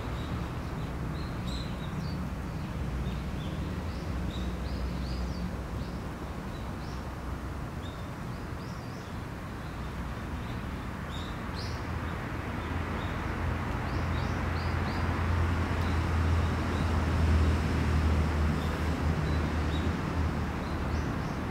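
Outdoor ambience: small birds chirping in short, high notes scattered throughout, over a low steady rumble. The rumble swells for a few seconds in the second half, then eases off.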